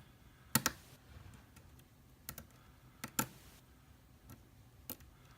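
Small metal clicks of a lock pick and tension wrench working the pins of an Abus 80Ti/50 titanium padlock. Three quick pairs of sharp ticks, then a single tick near the end.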